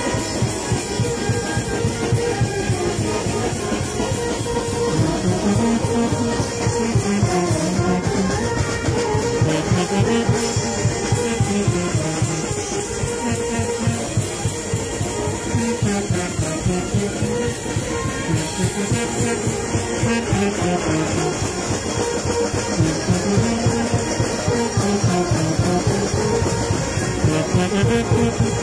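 Brass band with sousaphones playing a lively tune without a break, percussion keeping a fast, steady beat under the melody.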